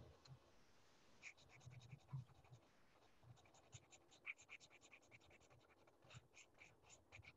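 Faint scratching of an ink pen on paper: quick back-and-forth strokes, about five a second, filling in a shape, starting about a second in.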